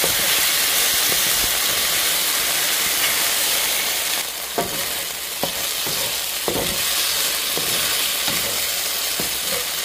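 Thin-sliced sirloin strips sizzling steadily in hot avocado oil in a very hot wok, searing to a crust. A wooden spatula stirs and scrapes the meat, with a few short knocks against the wok in the second half.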